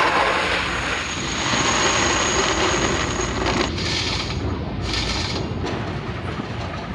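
Boot-shop eyelet-setting machine punching brass eyelets: a steady mechanical running noise with two short hissing bursts about four and five seconds in.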